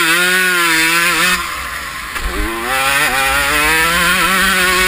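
1993 Honda CR125's single-cylinder two-stroke engine revving hard under throttle, heard from on board the bike. About a second and a half in the revs drop briefly as the throttle is rolled off, then climb again and stay high.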